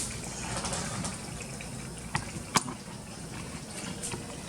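Liquid being poured and splashing into a container, with two sharp knocks about two and a half seconds in, the second the loudest.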